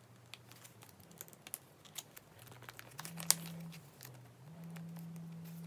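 Plastic binder pocket pages crinkling, with light scattered clicks, as photocards are slid into and pulled out of the sleeves of a nine-pocket page; one sharper click a little past the middle.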